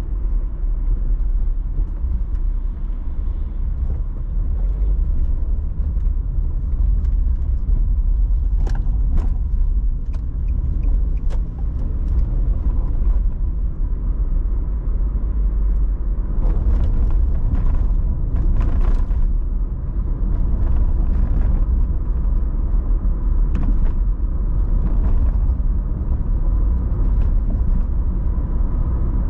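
A car travelling along the road: a steady low rumble of engine and tyre noise, with scattered short clicks and ticks through the middle.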